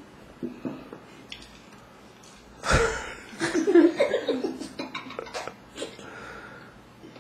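A sudden thump about two and a half seconds in, then a short stretch of people's voices with laughter.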